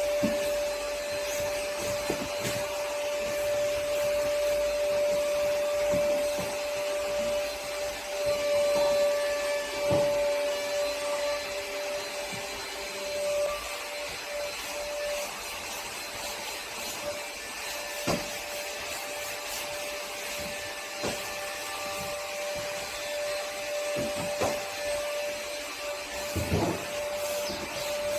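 A cleaning machine's motor running steadily with a constant whine, with scattered knocks and bumps.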